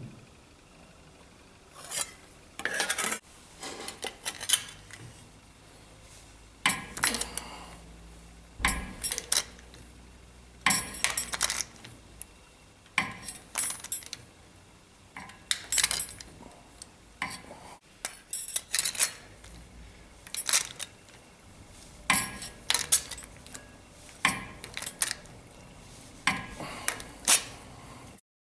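Sheet steel being shaped by hand, compressed (shrunk) to fit a template: groups of sharp metallic clinks and taps every second or two.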